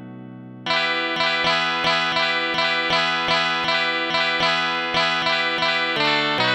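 Plucked-string chord tones from the Heavenly Chords smartphone app. A chord dies away, then just under a second in, notes are plucked in quick succession, about four a second, with a change of chord near the end.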